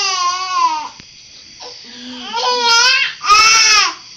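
Baby squealing in long, high-pitched vocal calls: one falling squeal that ends about a second in, then two more in the second half, the last the loudest.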